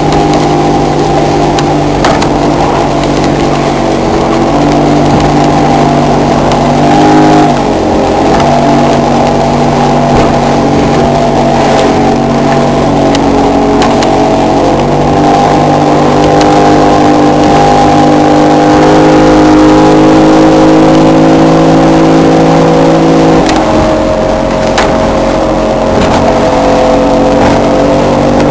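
Outboard motor of a 17-foot center-console boat running at speed through rough, choppy water, a steady drone whose pitch wavers briefly about seven seconds in and steps down slightly late on. Occasional knocks as the hull hits the chop.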